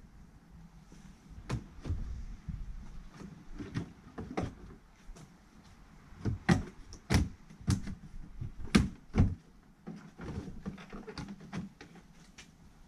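Black plastic boot trim panel of a VW Polo being pulled free: an irregular string of sharp clicks and knocks as its retaining clips pop out of their holes and the plastic knocks against the car body.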